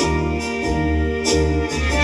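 Background music: an old-style jazz tune with keyboard chords over a bass line, and cymbal strokes keeping a steady beat.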